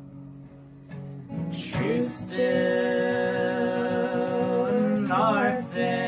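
Acoustic guitar chords ringing and fading, then a singing voice comes in about a second and a half in. It holds one long wavering note, then a quick run of notes near the end.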